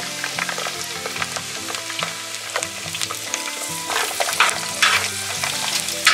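Chopped garlic sizzling as it fries in hot sesame oil in a metal pan, with a steady hiss and a few scrapes of the spoon stirring it about four to five seconds in.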